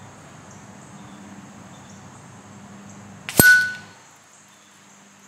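An air rifle pellet striking the steel target once, a little over three seconds in: a sharp metallic clang with a brief ring from the bell hung on a string, fading within about half a second.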